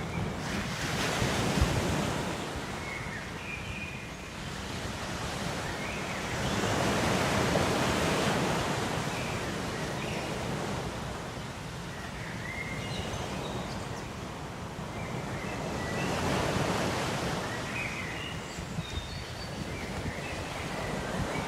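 Ocean surf washing on a shore, a steady rushing noise that swells and fades in slow surges several seconds apart, with faint short high chirps here and there.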